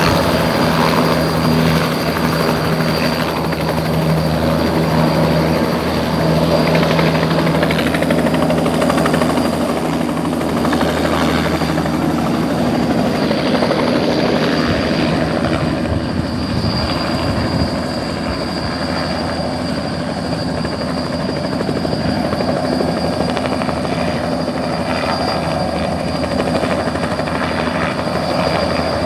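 Small helicopter's engine and rotor running steadily and loud, a constant low hum with a whooshing rotor wash over it.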